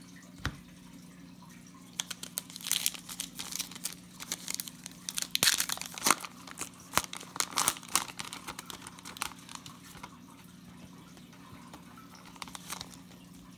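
Foil-lined wrapper of a trading-card pack being torn open and peeled back by hand, crinkling and crackling irregularly for several seconds before easing off near the end.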